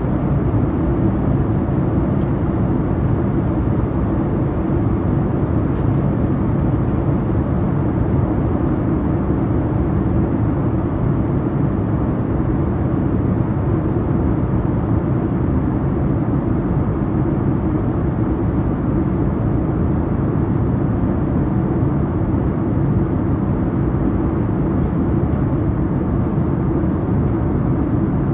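Steady, low rushing noise inside the cabin of a Boeing 787-9 in flight: jet engines and airflow.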